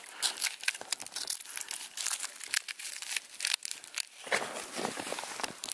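Dry bark being peeled and torn off a dead birch tree: an irregular run of crackling and tearing.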